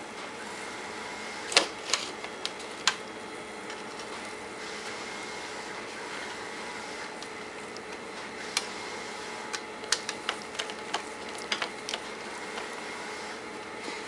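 Small sharp clicks and taps of a screwdriver and screws against a circuit board and plastic case as the board's mounting screws are started, scattered a dozen or so times, the loudest about a second and a half in. Under them runs a steady faint hum.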